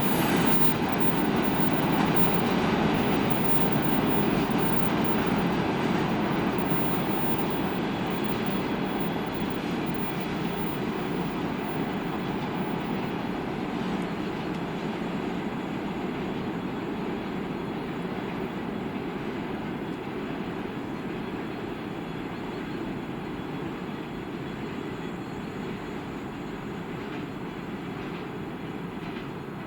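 Freight train rolling along the rails, a steady rumble of wheels on track that slowly fades away.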